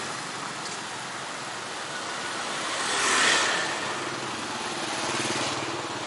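Street traffic going by: the steady hum of passing motor vehicles, with one vehicle's engine passing close and growing louder, loudest about three seconds in.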